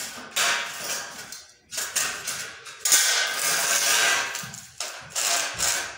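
Metal clattering and scraping from steel drywall profiles and hangers being handled and fitted, in several sudden bursts, the longest lasting over a second.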